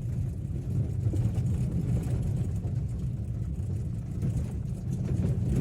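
Maruti Swift driving over a rough road: a steady low rumble of road and engine noise with no knocking or rattling from the steering column, which has just been repaired.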